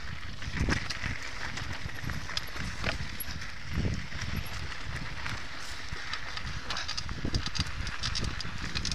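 Mountain bike rolling fast down a rough dirt singletrack: tyres crunching over dirt and stones, with a steady rush and frequent irregular knocks and rattles from the bike over bumps.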